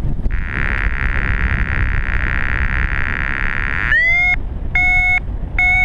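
Wind rushing over the microphone in flight, with a paragliding variometer sounding: a steady buzz at first, then about four seconds in a rising chirp followed by short, evenly spaced beeps a little under a second apart, the vario's signal of climbing in lift.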